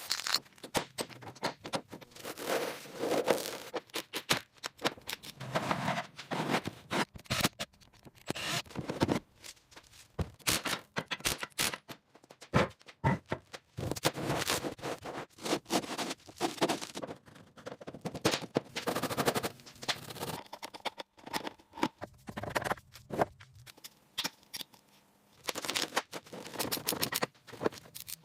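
Tools working on metal: scraping and rapid clattering in irregular bursts with short pauses between.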